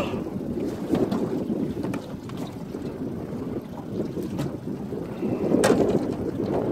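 Wind blowing on the microphone, with water lapping against the boat's hull; a sharp click near the end.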